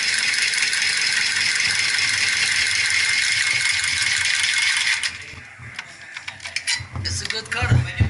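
Cordless copper tubing cutter spinning around a copper pipe with a steady high rattling whir, which stops abruptly about five seconds in. After it stops, a few clicks and knocks follow.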